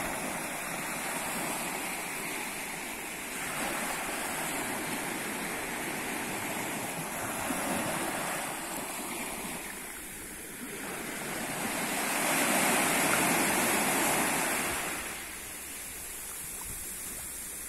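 Small waves breaking and washing up the sand at the shoreline, foam rushing in and draining back in slow surges. The biggest wash comes about two-thirds of the way through.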